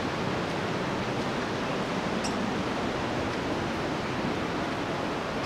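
Steady roar of rushing whitewater, an even hiss with no pauses or changes.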